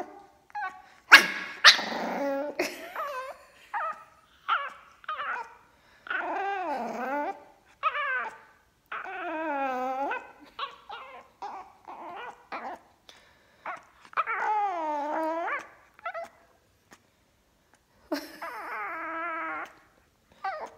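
Pekingese puppy 'talking': a run of separate grumbling, whining vocalizations that bend up and down in pitch, several of them drawn out to a second or more, with two sharp yips about a second in. It is his complaint at the cat finding his food bowl.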